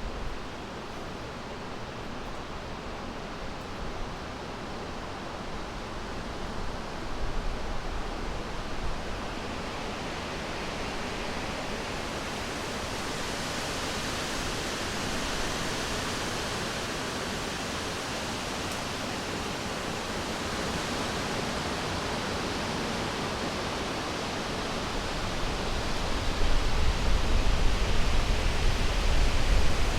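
Summer wind blowing through a forest: a steady rushing hiss that grows brighter midway. Gusts build near the end, adding a low rumble and getting louder.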